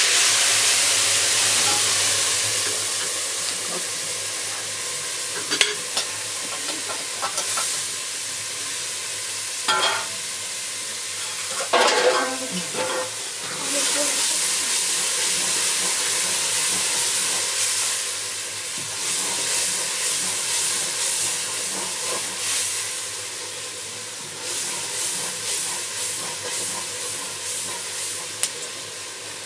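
Liquid poured into a hot pot hisses and sizzles loudly in a burst of steam, fading over a few seconds. A metal ladle then stirs and scrapes in the pot with a few clinks about ten to thirteen seconds in. The contents sizzle again, and there is a run of quick stirring strokes near the end.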